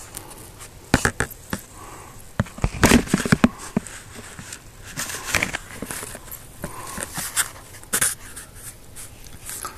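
Handling noise: irregular scrapes, taps and rustles of a handheld camera and hand moving against a clear plastic tub, with a dense cluster of sharp knocks about three seconds in.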